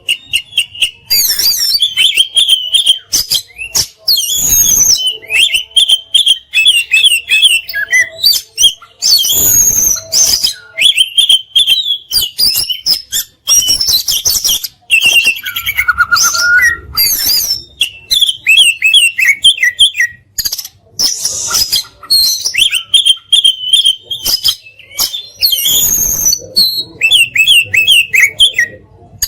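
Oriental magpie-robin (kacer) in full song: a long run of rapid, varied whistled phrases and fast chattering trills with only brief pauses, the rich 'isian' fill-ins and 'tembakan' bursts that are valued in a contest kacer.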